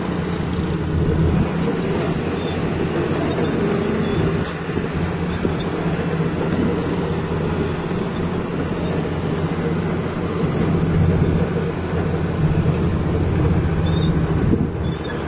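Truck engine running at a steady low drone while driving, with rumbling road and body noise, heard from inside the cab.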